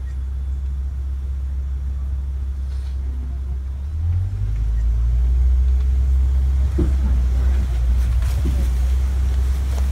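Safari truck's engine running with a steady low rumble, growing louder about four seconds in as the truck moves off.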